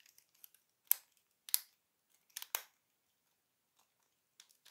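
Plastic parts of a Transformers G1 Sixshot toy clicking as it is handled and transformed, its panels rotated into armoured-car mode. There are four sharp clicks: one about a second in, one about a second and a half in, and two close together around two and a half seconds.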